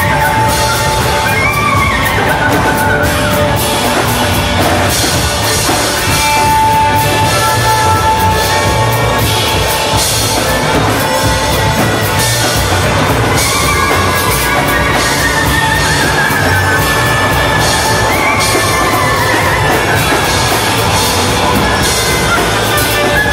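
Live band playing an instrumental passage: clarinet and trumpet leads over lap steel guitar, electric guitar and drums. The melody slides up and down in pitch.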